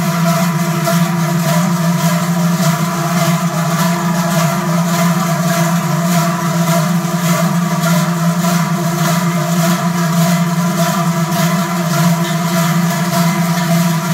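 Many large Trychel cowbells swung together by a group of bell carriers, clanging in a steady rhythm, with their combined ringing merging into a continuous low drone.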